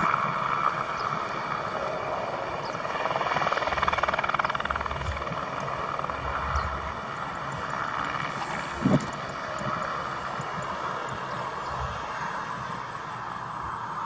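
Heli Star XU-189 helicopter running steadily, its turbine engine and main rotor turning, with a brief thump about nine seconds in.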